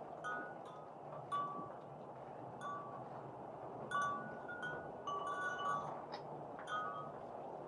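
Wind chimes tinkling irregularly, a few fixed notes ringing briefly over and over, over a steady background hiss.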